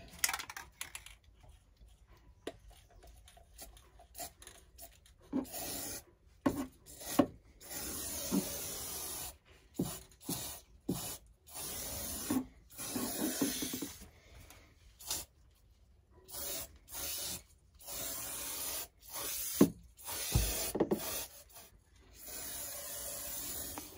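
Aerosol can of Rust-Oleum Universal Hammered Black spray paint hissing in repeated bursts of one to two seconds as it is sprayed onto a countertop. The bursts start about five seconds in and are separated by short pauses and a few light knocks.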